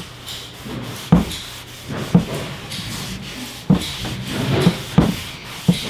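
Foam applicator pad rubbed over the leather headrest of a car seat wet with cleaner: a run of uneven scuffing strokes, each starting with a short sharp scrape.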